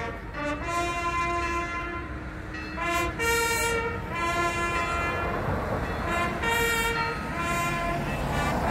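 Brass fanfare: a run of long held notes that step up and down in pitch, sounded as a ceremonial welcome.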